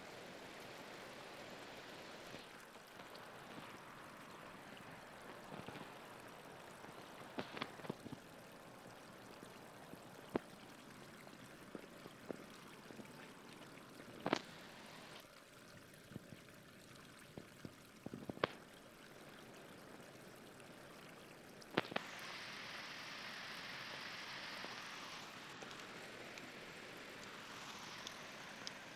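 Steady rushing of river water, broken by a handful of sharp clicks and rustles from bare feet moving through dry grass on the bank. About three-quarters of the way through, a brighter hiss rises for a few seconds and fades.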